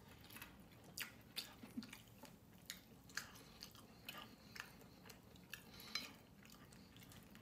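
Quiet eating sounds: faint chewing with scattered soft clicks, some from fingers picking up rice on a glass plate.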